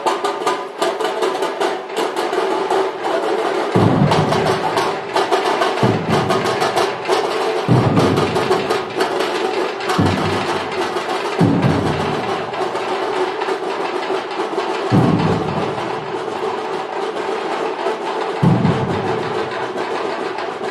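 Procession drums beaten hard: a fast, dense rattle of strokes with a heavy low drum beat landing every couple of seconds, growing a little fainter near the end.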